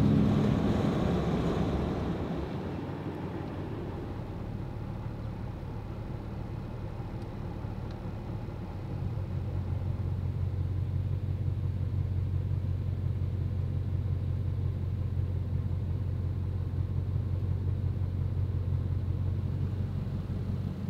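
Pickup truck running, heard from inside the cab: a low, steady engine and road rumble. It eases off over the first couple of seconds, and a steadier, slightly louder low hum comes in about nine seconds in.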